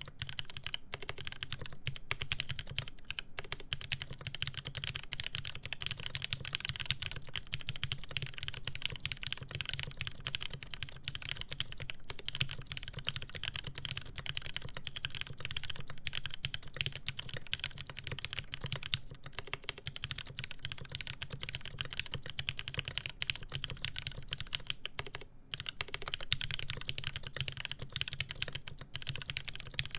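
Fast continuous typing on a SINGA Jaguar mechanical keyboard with lubed Cherry MX Speed Silver linear switches on a polycarbonate plate, with GMK keycaps. It has a dense patter of key strikes and a brief pause about 25 seconds in.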